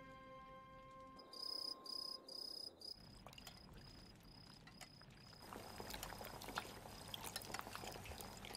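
Crickets chirping in a steady rhythm, about three chirps a second. From about three seconds in, a pot of soup bubbles and crackles over a wood-fired stove; this grows louder about halfway through as the soup is stirred with a wooden spoon.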